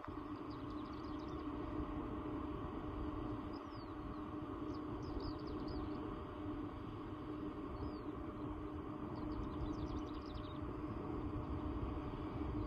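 Steady low rumble of an Air France Airbus A380's four Engine Alliance GP7270 turbofans on final approach, heard from afar. Small birds chirp in short runs several times over it.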